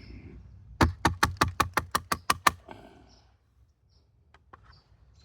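Rapid run of about a dozen sharp taps, some six a second, lasting about two seconds, then a few faint scattered clicks: a plastic hive gate being knocked and handled.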